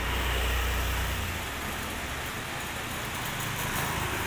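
Street ambience: a steady noisy hiss with a low vehicle-engine hum that fades after about the first second.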